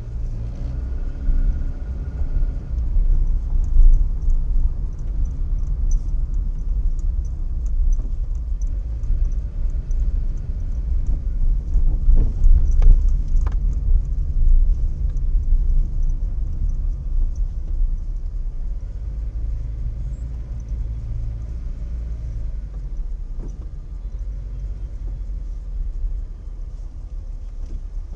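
Low, steady rumble of a car's engine and tyres, picked up inside the cabin by a dashboard camera as the car drives. There are a few faint clicks around the middle.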